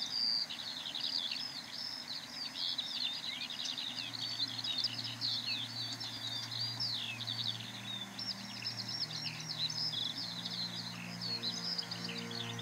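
Eurasian skylark song: an unbroken, rapid, high warbling twitter. Soft, sustained low music notes come in under it about four seconds in.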